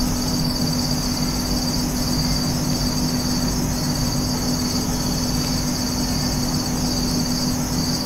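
A high, steady insect trill, broken by short gaps, over a low steady hum.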